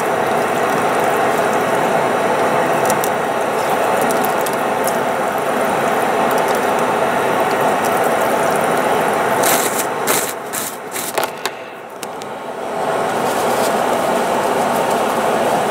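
Steady rushing noise in an airliner lavatory. It briefly drops about ten seconds in, where a quick cluster of clicks and rustles sounds, then comes back.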